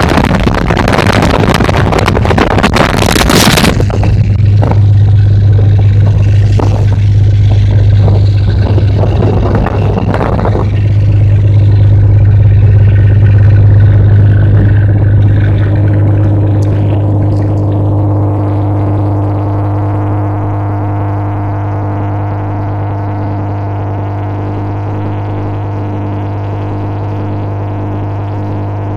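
Tugboat's diesel engine running with a steady low drone. A loud rushing noise lies over it for the first few seconds.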